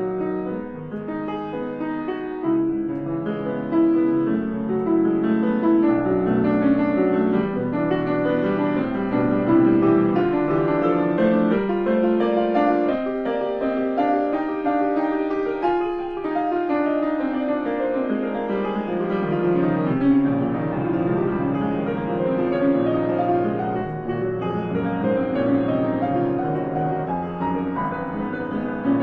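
Grand piano played in a continuous improvisation of dense, overlapping notes, mostly in the middle register. About 12 seconds in, the bass drops away for several seconds while the notes climb higher, then the low notes return around 19 seconds.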